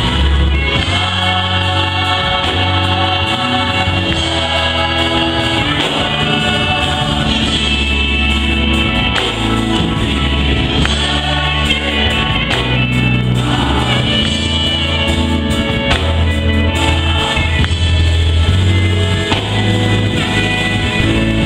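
Gospel choir singing held chords in harmony over instrumental backing, with a deep bass line moving underneath.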